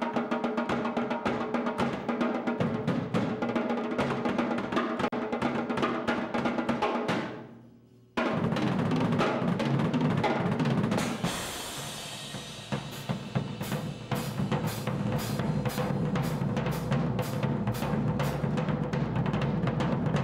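Live acoustic drum kit solo on Pearl drums and Sabian cymbals, recorded only through a camera microphone: fast strokes across snare and toms. About seven seconds in it fades almost to silence. It then comes straight back with rapid double bass drum and tom rolls, a cymbal wash, and sharp accents about twice a second over the rolling low end.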